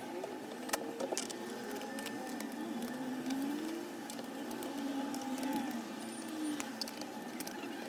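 Scattered light clicks of a small screwdriver taking out the tiny bottom-case screws of a MacBook Air, over a faint wavering hum that slowly rises and falls in pitch.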